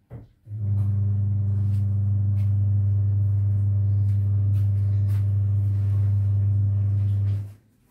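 A steady low hum that starts about half a second in and stops abruptly near the end, with faint soft clicks over it.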